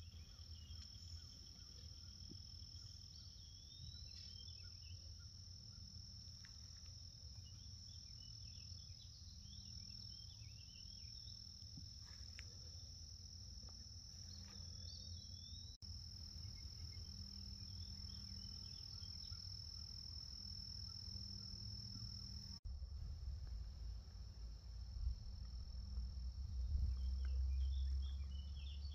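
Steady high-pitched drone of an evening insect chorus, with scattered bird chirps over it and a low rumble that grows louder near the end.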